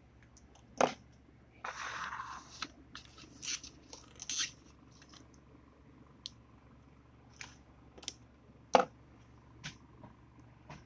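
Folding metal karambit knives being handled: a string of sharp metallic clicks and clacks, with a short scraping rustle about two seconds in. The later clacks, the loudest near the end, come as the knives are laid down on a wooden desk.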